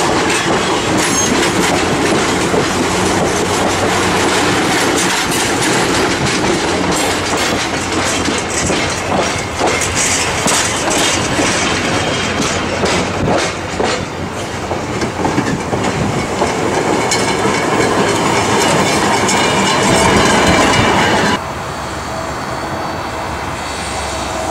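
Railroad passenger cars and a caboose rolling past close by, their steel wheels clicking over the rail joints with some squeal. Near the end the sound drops suddenly to a quieter, steady rumble.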